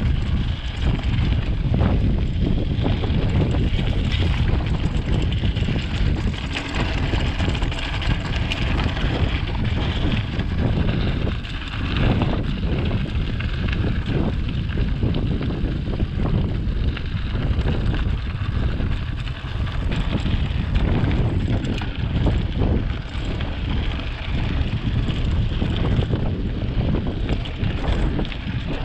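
Wind rushing over the action camera's microphone over the rumble and rattle of a mountain bike rolling along a rough dirt trail, with scattered knocks from the bike.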